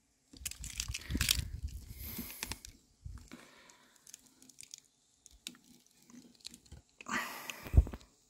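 Close-up crunching and rustling handling noise, with scattered clicks in the middle and a heavy thump near the end.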